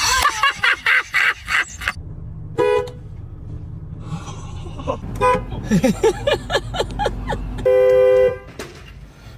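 Car horn honking: a quick run of short loud bursts in the first two seconds, a couple of short toots, then one steady blast lasting most of a second near the end.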